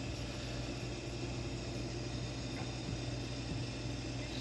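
John Deere tractor engine running steadily under load, heard from inside the cab as a low, even drone.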